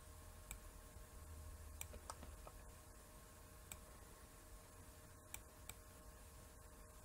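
Near silence with a scattering of faint computer mouse clicks, irregularly spaced, over a faint steady hum.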